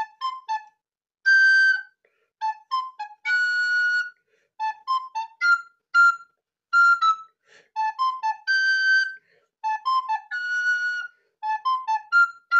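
Soprano recorder playing a brisk melody of short tongued notes. Quick groups of notes each lead into a longer held high note, and the phrase repeats several times.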